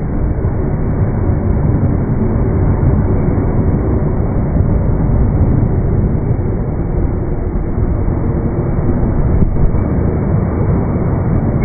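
Steady low rumble of a JR Hanwa Line electric train at the level crossing, heard in slowed-down slow-motion audio, deep and muffled with no bell or horn standing out.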